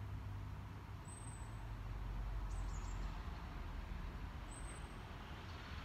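Low steady rumble with a faint hiss, swelling slightly in the middle of the pause: background room noise.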